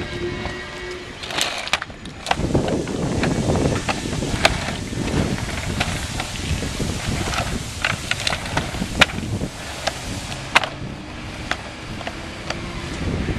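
Hard plastic floor panels clacking and knocking as they are set down and fitted together on asphalt, with irregular sharp knocks every second or so, the loudest about nine and ten and a half seconds in.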